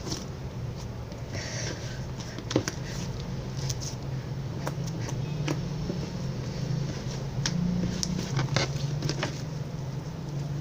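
Homemade slime being squeezed and kneaded by hand, giving scattered small clicks and popping crackles, over a steady low hum.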